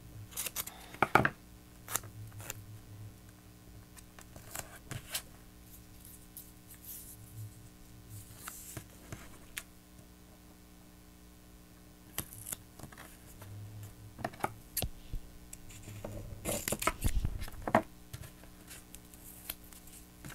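Tape being pulled, torn and pressed onto paper pieces by hand: scattered tearing and crinkling with light taps, loudest about a second in and again near the end.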